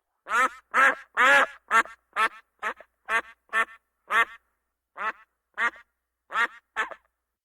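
Duck quacking, a series of about a dozen short, loud quacks at uneven intervals, sometimes two close together, stopping near the end.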